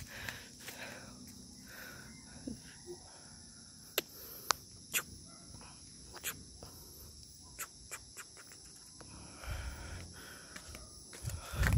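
Steady, high-pitched insect chorus from the surrounding tropical forest, with a few sharp clicks in the middle and a low rumble near the end.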